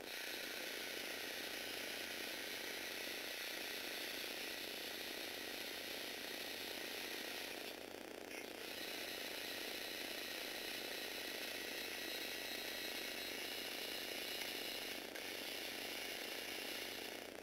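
Small electric motors driving the plastic gear train and linear actuators of a Lego Technic 8258 Duty Wrecker's boom, a steady whirring gear noise as the boom is raised and lowered. It stops for about a second some eight seconds in, and again briefly near the end.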